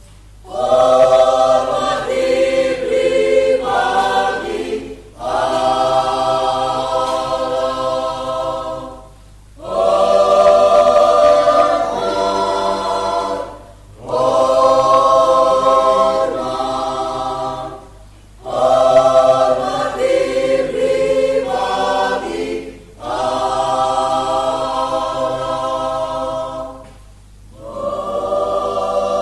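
Mixed church choir of women and men singing a hymn in sustained chords, phrase after phrase, with a short breath pause about every four seconds.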